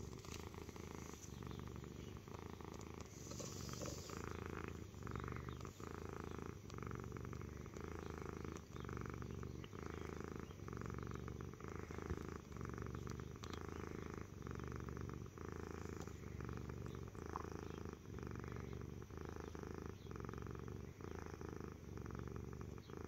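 Black cat purring steadily at close range, the purr swelling and easing with each breath in and out.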